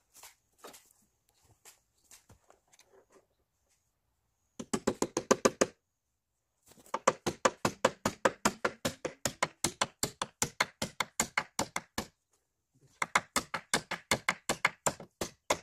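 Hammer driving nails into the wooden stair frame: a few light taps, then three runs of quick, sharp blows, the longest lasting about five seconds.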